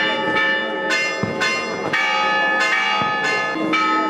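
Church bells ringing a peal: several bells of different pitches struck in quick succession, about two to three strokes a second, each stroke ringing on under the next.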